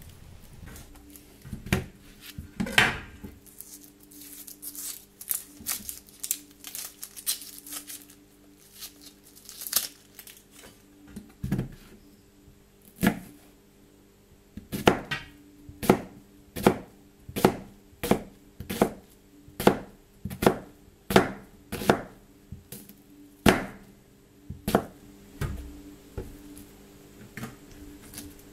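Knife chopping food on a cutting board: a run of sharp knocks, scattered at first, then steady at about one and a half chops a second through the middle stretch.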